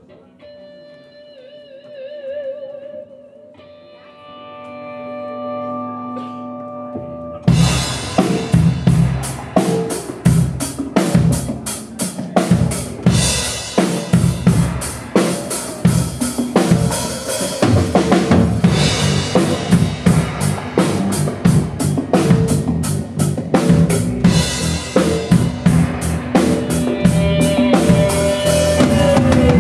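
A rock band playing live: it opens with a few soft held notes with vibrato, then about seven seconds in the drum kit, bass guitar and guitar come in together at full volume with a steady beat.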